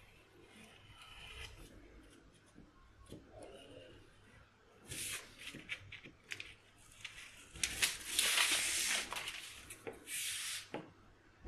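Rotary cutter slicing through pattern paper on a cutting mat, with the paper rustling. The cutting starts about five seconds in, in several short strokes, and is longest and loudest a little past the middle.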